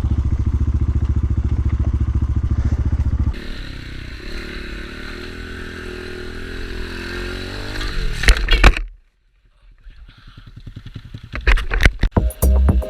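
Dirt bike engine running close by, loud and even for about three seconds, then quieter with its pitch slowly rising. A few loud knocks follow, the sound cuts out, and music starts near the end.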